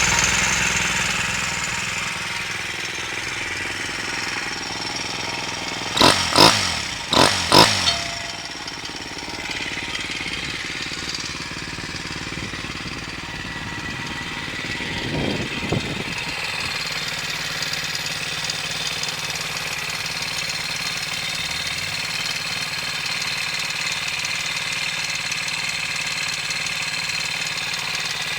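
Monkey minibike's Kitaco 124cc four-stroke engine on a Yoshimura TMR 28 carburettor, running at a steady idle. About six seconds in the throttle is blipped four times in quick succession, and there is one more short rev about fifteen seconds in.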